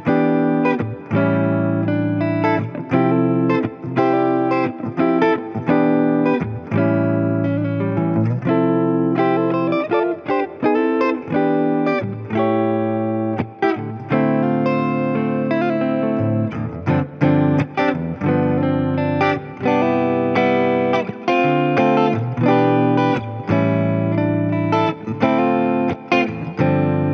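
Gretsch G5222 Electromatic Double Jet electric guitar playing chords and single-note lines over a backing track.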